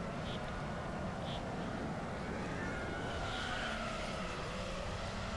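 FPV quadcopter motors and propellers whining over a steady hiss, the pitch wavering up and down as the throttle changes.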